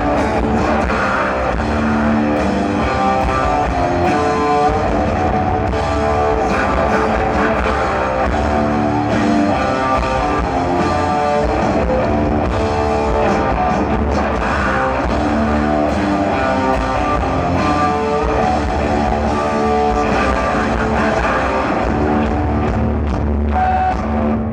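A rock band playing live, loud and continuous: amplified electric guitar over a drum kit.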